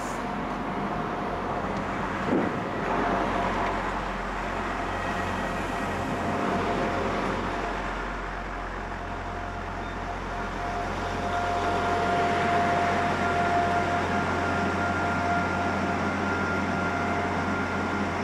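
Class 175 diesel multiple unit running beneath a footbridge: a steady rumble from its underfloor diesel engines and wheels on the rails, with a steady whine over it. A short knock comes about two seconds in.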